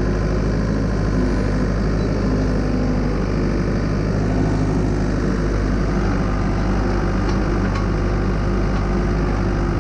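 Skid-steer loader engine running steadily, heard from inside the operator's cab.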